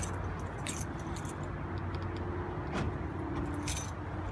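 Keys jingling with a few light clicks over a steady low hum.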